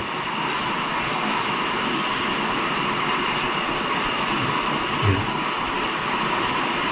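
Steady rushing of moving air from a running fan, even in level with a few faint steady tones in it.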